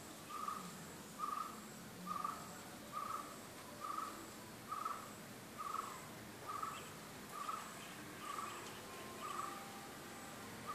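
A bird calling one short, clear note over and over, evenly, about once a second.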